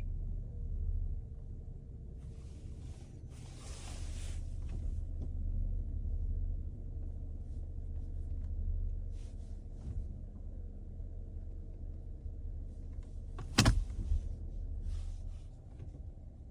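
Low, steady hum with a faint higher tone over it, broken by a few short hissing noises and one sharp click about thirteen and a half seconds in.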